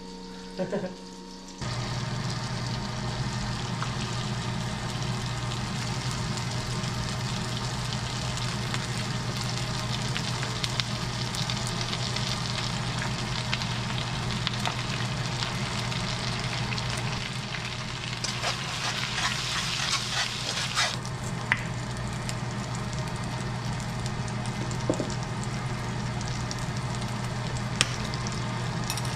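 Butter, ginger paste and soy sauce sizzling and being stirred in a hot wok, the sizzle swelling for a few seconds about two-thirds of the way through and then easing. A steady fan hum comes on suddenly about a second and a half in and runs under it.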